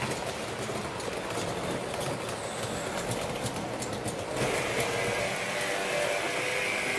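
Model train running along the track: a steady rolling rush with scattered clicks. About four seconds in, a steady whine joins it.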